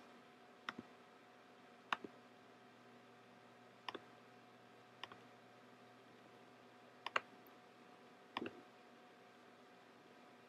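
Computer mouse button clicks, about six of them spread out, several heard as a quick press-and-release pair, over a faint steady hum.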